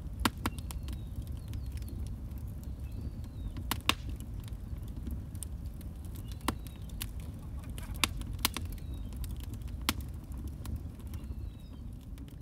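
Wood fire crackling in a metal fire pit: a steady low rumble with sharp pops at irregular intervals, several seconds apart at times, a few in quick pairs.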